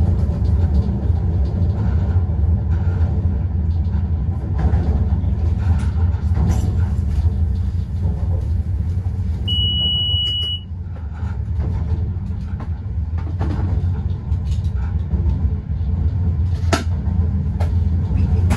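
Cab interior of a Newag Dragon electric locomotive under way: a steady low rumble of the running train with scattered sharp clicks and knocks. About halfway through, a single high electronic beep from the cab sounds for just over a second.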